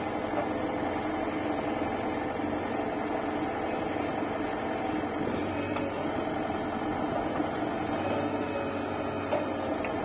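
JCB 3DX backhoe loader's diesel engine running steadily as the machine works its backhoe arm loading soil.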